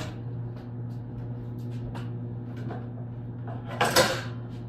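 Kitchen cupboard opened and a bowl taken out, with a loud clatter about four seconds in and a few light knocks before it, over a steady low hum.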